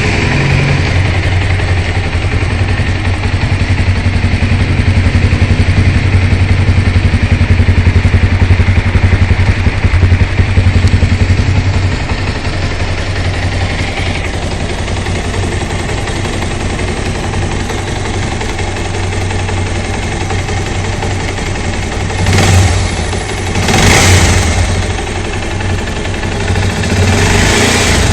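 Bajaj Pulsar 200 motorcycle's single-cylinder engine idling steadily, running a little louder for several seconds in the first half. Near the end the throttle is blipped three times in short revs.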